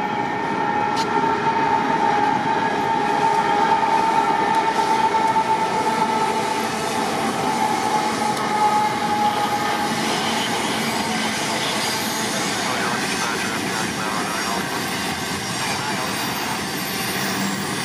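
Double-stack intermodal freight train rolling past: a steady rumble of wheels on rail, with a high steady tone over the first few seconds that fades out about halfway through.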